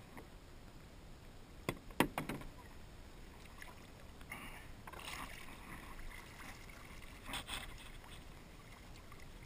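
A few sharp knocks against a canoe hull about two seconds in, then river water splashing and sloshing around the canoe as a person moves in the water beside it, with a louder splash near the end.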